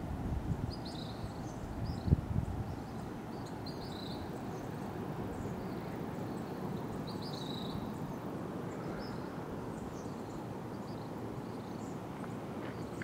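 Outdoor ambience of wind rumbling on the microphone, with small birds chirping in short, scattered bursts. A single low thump about two seconds in.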